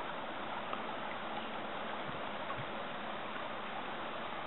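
A steady, even rushing hiss with no distinct events.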